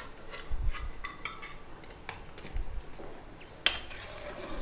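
Metal ladle stirring mutton bone curry in an aluminium kadai, scraping and clinking against the pan now and then, with a sharper clank about three and a half seconds in.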